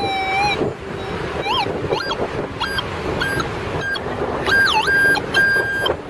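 Minelab Go-Find metal detector sounding target tones as its coil sweeps the sand: a held tone, a rising-and-falling chirp, then a run of short beeps and warbling tones, the sign of metal under the coil. Steady wind and surf run underneath.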